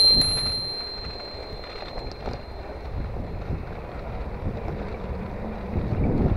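A bicycle bell rung once, a bright ring that fades over about a second and a half, over wind buffeting the microphone.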